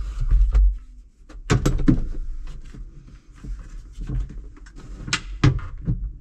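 Clunks and knocks of a tractor seat base being shifted and lined up on its mounting bolts, a cluster of sharp knocks about one and a half seconds in and a couple more about five seconds in, over low handling rumble.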